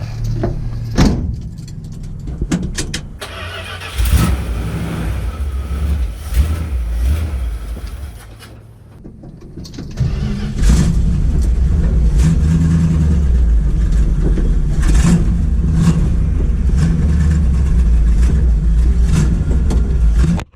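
1972 Dodge Demon's engine being started: quieter cranking with sharp clicks, catching about four seconds in, sagging around eight seconds, then picking up about ten seconds in and running steadily.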